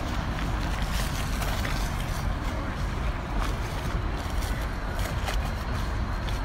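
Steady outdoor city noise: distant road traffic under wind rumbling on the microphone, with a few faint clicks.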